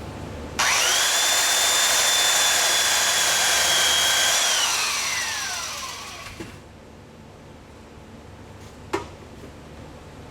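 Small high-speed power sanding tool starting abruptly, whining up to speed, running steadily for about four seconds, then spinning down with a falling whine. A single sharp click follows near the end.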